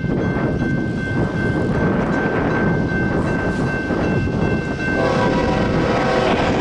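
BNSF GE ES44DC locomotive approaching on a freight train, its engine and wheels rumbling with wind on the microphone; about five seconds in, its multi-note air horn starts sounding for the level crossing. A thin steady high tone runs through the first part.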